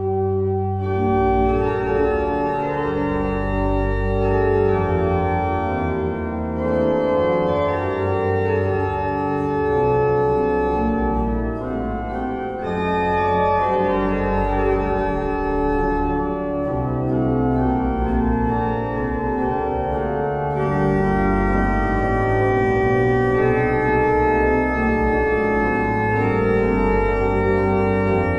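Meere pipe organ of 1809, a two-manual mechanical-action slider-chest organ with pedal, playing full and loud with sustained chords over a deep pedal bass; the music comes in suddenly right at the start.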